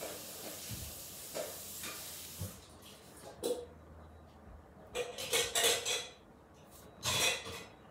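Pencil scratching on paper in short strokes while drawing, with a longer run of scribbling about five seconds in and another stroke burst near the end.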